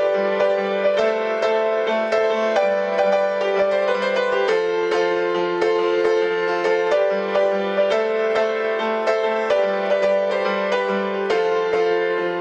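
Instrumental background music: a melody of struck notes, about two a second, over a steady low bass line.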